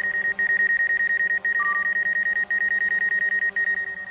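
Rapid, steady electronic beeping of the DJI Mavic Air 2's obstacle-sensor proximity warning, set off by a person standing close to the hovering drone, with one short separate beep about a second and a half in. Under it runs the steady, low-pitched hum of the drone's Master Airscrew stealth propellers.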